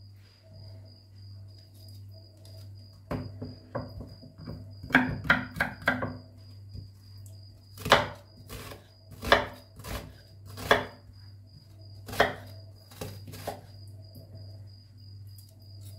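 Knife chopping an onion into small pieces: a few strikes about three seconds in, a quick run of about six strikes around five seconds in, then single strikes roughly a second apart. Crickets chirp steadily in the background.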